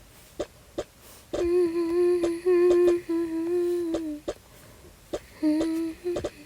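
A person humming a few held, slightly wavering notes in two phrases, with sharp light clicks and knocks scattered throughout.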